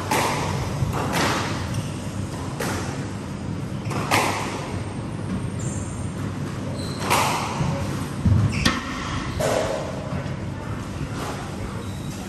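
Squash rally: the ball is struck by the racquets and cracks off the walls every second or two, each hit ringing in the court. A heavier, deeper thump comes about eight seconds in.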